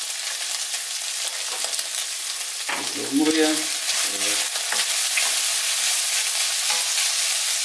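Browned diced beef and freshly added chopped onion sizzling in a hot nonstick pan. From about three seconds in a slotted spoon stirs and scrapes through them, and the sizzle grows a little louder.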